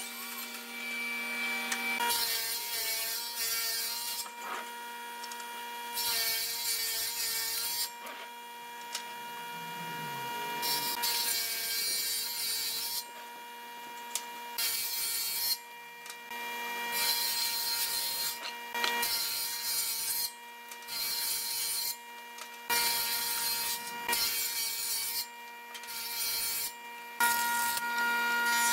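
A combination woodworking machine's jointer running, with repeated cutting passes of one to three seconds each as boards are fed across the cutter head. The motor's steady hum carries on between the passes.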